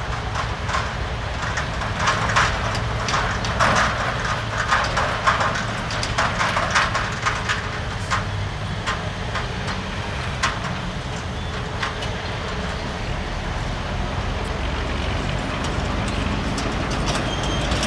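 ALCo DL500S diesel locomotive running steadily as it hauls a freight train of hopper wagons, a low engine drone throughout. During the first half many sharp, irregular clacks and knocks ride over it, then they thin out and the drone carries on alone.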